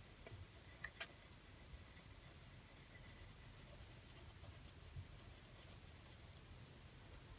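Faint scratching of a graphite pencil shading lightly on paper, barely above near silence, with a few soft ticks.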